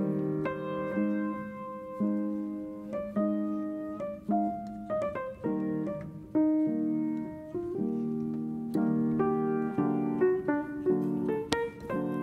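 Background piano music: single notes and chords struck at an unhurried pace.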